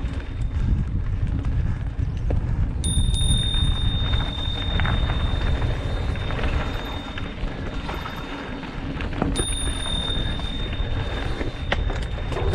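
Mountain bike rolling fast down a dirt and rock trail: tyres crunching and rattling over loose ground, with wind buffeting the helmet camera's microphone. A high, steady whine comes in sharply about three seconds in and again about nine seconds in.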